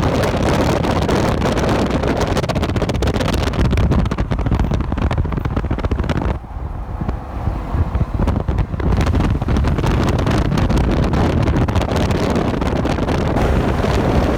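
Highway traffic passing close by: steady tyre and engine noise with wind buffeting the microphone. It eases briefly about six seconds in, then builds again as more vehicles pass.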